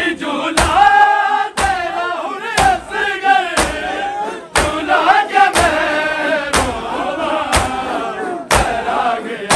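A group of men chanting a Punjabi noha in unison, kept in time by the sharp slaps of matam (chest-beating) that land about once a second.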